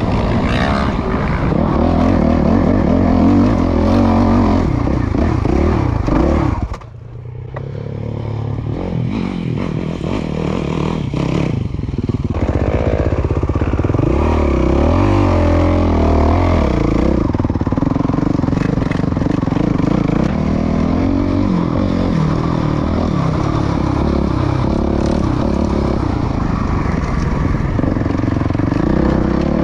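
2019 Suzuki RMZ450's single-cylinder four-stroke engine, fitted with a Yoshimura RS-12 full exhaust, being ridden on a dirt trail, its revs rising and falling with the throttle. About seven seconds in the throttle is shut and the engine drops quieter for a moment, then picks back up.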